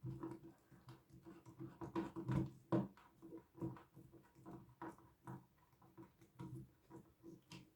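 Irregular small clicks, taps and rustles of hand wiring work: wires being handled and connected to the terminals of a magnetic contactor.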